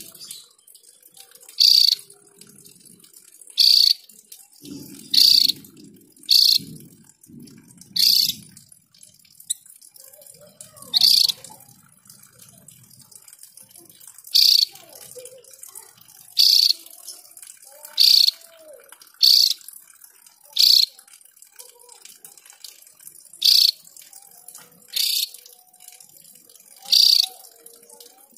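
Caged Javan grey-throated white-eye (opior jawa) calling: a string of short, sharp, high notes, one every one and a half to two seconds, about fifteen in all.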